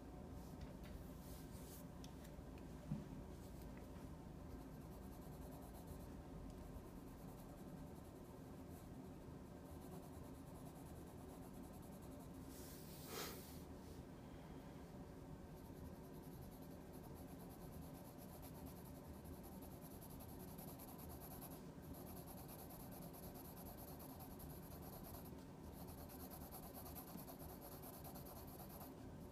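Faint scratching of a graphite pencil shading on paper, with a single soft tap about three seconds in.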